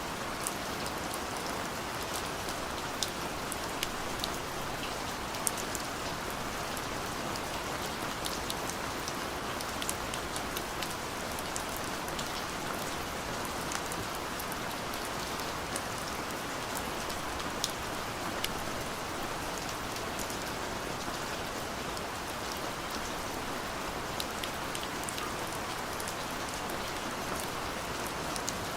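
Steady rain falling, an even hiss with many scattered sharp drop hits.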